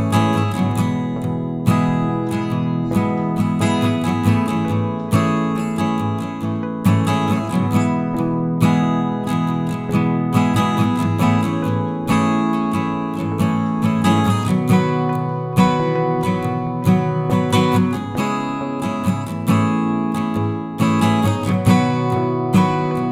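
Background music: strummed and plucked acoustic guitar playing continuously.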